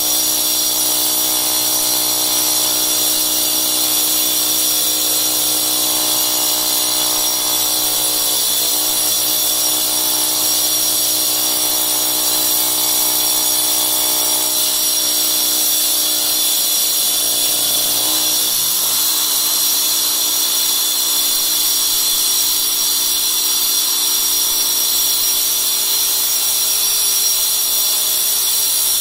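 DeWalt DCG405F 18V cordless angle grinder with a segmented diamond blade cutting through installed marble tile, running steadily with a high whine, its pitch sagging briefly about two-thirds of the way in as the blade loads up. A Kärcher dust-extraction vacuum runs at the blade guard alongside.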